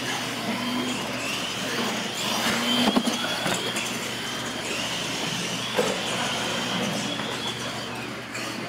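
Radio-controlled monster trucks racing, their electric motors and gearing giving a high, steady whine that wavers slightly in pitch. A sharp knock comes about three seconds in, and a smaller one near six seconds.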